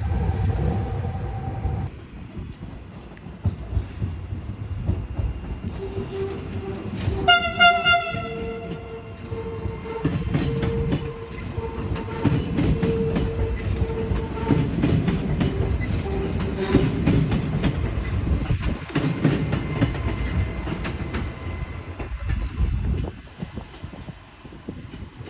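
Train running with a steady low rumble and wheels clicking over the rail joints. It gives one short horn blast about seven seconds in.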